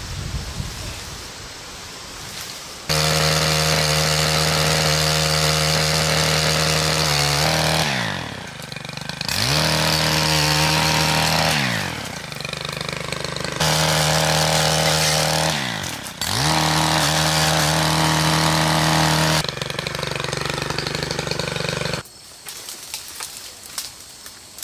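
Stihl gas pole saw engine running at high speed while cutting overhead branches. It twice drops in pitch and revs back up, eases to a lower speed, then cuts off near the end.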